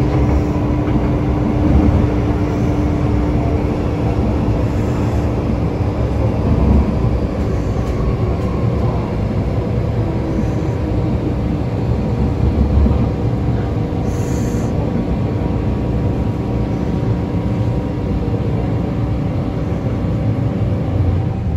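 MTR Tsuen Wan Line M-train running, heard from inside the car: a steady rumble of wheels and car body under a howl of several steady tones from the traction equipment.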